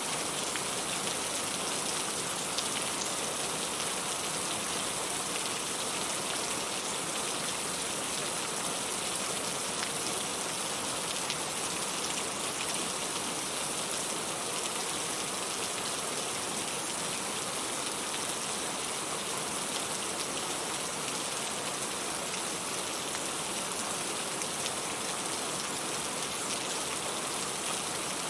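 Steady rain falling, an even unbroken hiss with faint scattered drop ticks, used as a pink-noise sleep sound.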